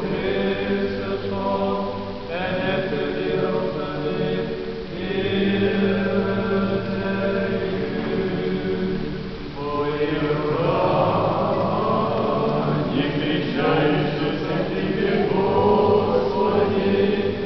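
Russian Orthodox liturgical chant sung by several voices, in long held notes that move to new phrases every few seconds.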